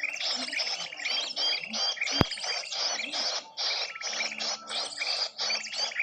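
Dense chorus of many small birds chirping rapidly and without pause, a bird-lure (pikat) recording for attracting small birds. A single sharp click about two seconds in.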